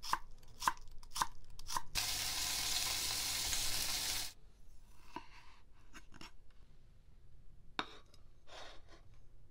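A kitchen knife slicing myoga on a wooden cutting board, four quick strokes about half a second apart. Then a block of bonito sizzling loudly in an oiled frying pan for about two seconds, cut off suddenly, followed by a few faint knocks and clicks.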